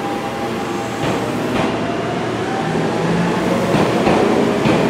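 Seibu 4000 series electric train approaching the platform, its running sound growing steadily louder. The wheels knock over rail joints and points a few times.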